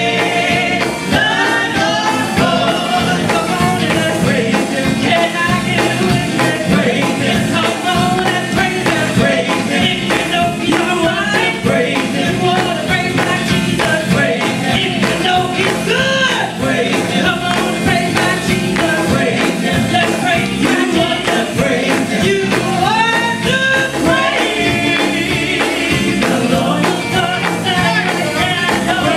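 Live gospel music: a woman lead singer on a microphone with women backing singers, over an amplified band with electric guitars.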